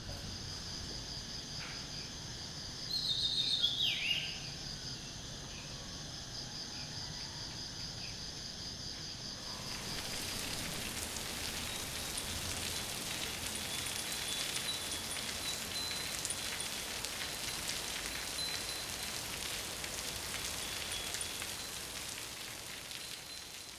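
Steady insect chorus, a pulsing high drone, with one falling bird-like call about three to four seconds in. About ten seconds in the ambience changes to a denser hiss full of small ticks, like light rain, with faint insect trills over it.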